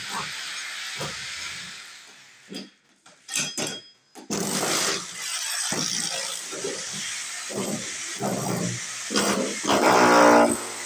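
Electric power drill boring into a wooden door. The motor runs, cuts out for a couple of seconds with only short bursts, then starts again and keeps running. It is loudest near the end, with a whine.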